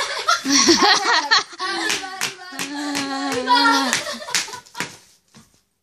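Women's voices exclaiming and laughing over a few sharp hand claps, then a sudden stop about five seconds in.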